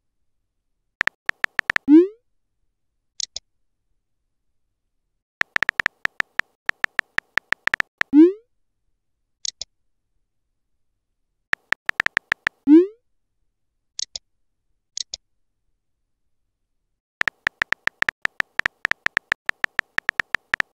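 Simulated phone-keyboard typing from a texting-story app: quick runs of key clicks, three of them ending in a short rising pop as the message is sent. Brief high-pitched blips sound between the runs, with silence in the gaps.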